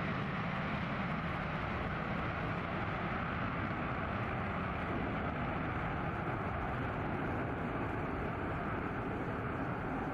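Jet engine noise from a B-1B Lancer's four turbofan engines at takeoff power as the bomber lifts off and climbs away. It is a steady, loud rush, and its highest part thins out slightly after a few seconds.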